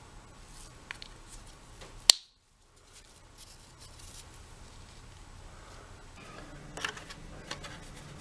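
Light clicks and rattles of plastic vacuum parts being handled as end caps are fitted onto the brush roll. There is a sharp click about two seconds in and another cluster of clicks near the end.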